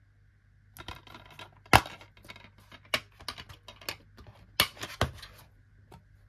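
Hard plastic DVD case being handled and opened, a run of clicks and rattles. Sharp clicks come as the disc is pressed off its centre hub and lifted out. The loudest snap comes just under two seconds in, with two more sharp clicks near the end.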